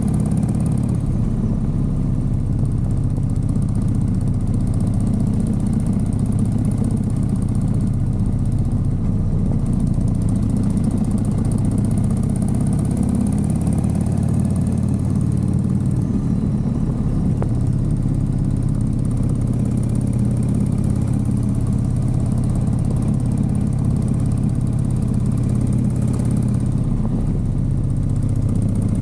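Motorcycle engine running steadily at an even pitch while the bike rides along.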